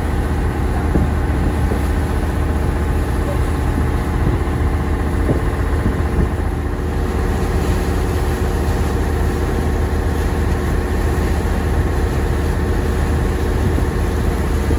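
An engine running steadily with a deep, even drone that does not change.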